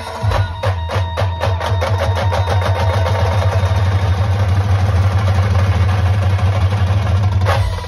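Brass-band drumming on big bass drums and sharper snare-type drums: fast strokes over a heavy low boom that close into a continuous roll, then stop abruptly with a last hit near the end.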